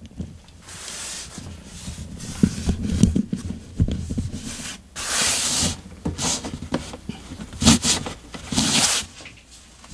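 A cat pawing and nosing around close by: several bursts of scraping and rubbing, with sharp knocks in between.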